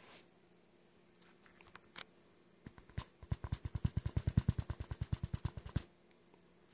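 Plastic gold pan with water and fine concentrate shaken rapidly, making fast, even sloshing pulses about ten a second for about three seconds that stop abruptly. A few light knocks come before it. The shaking settles the heavy gold to the bottom of the pan.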